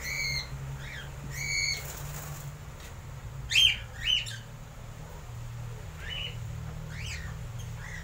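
Cockatiels in the cages calling: short whistled chirps near the start, then two loud sweeping squawks about three and a half and four seconds in, and a few more calls later. A low steady hum sits beneath.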